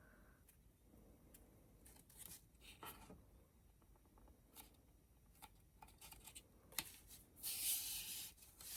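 Faint hand-crafting sounds of a glued strip of material being held and pulled into place on a box: scattered light taps and soft rustles, with a short scratchy rub about seven and a half seconds in.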